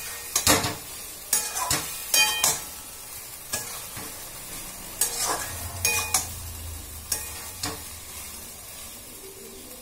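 Metal spatula scraping and clinking against a metal kadhai as potatoes in poppy-seed paste are stirred and fried, over a steady sizzle of oil. The strokes come irregularly, about one a second, some with a short metallic ring, and thin out near the end. The frying cooks the raw taste out of the poppy-seed paste.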